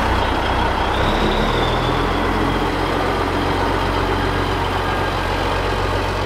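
A large vehicle engine running steadily and loudly, with a deep rumble.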